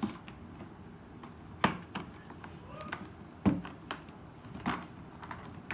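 Hard plastic toy pieces knocking and clicking together as they are handled and fitted: a scatter of sharp taps, with four louder knocks spread across a few seconds.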